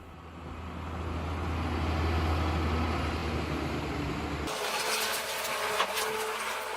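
Heavy forestry forwarder's engine running with a steady low hum that swells over the first few seconds. About four and a half seconds in the sound changes abruptly to a lighter mechanical noise with scattered ticks and clicks.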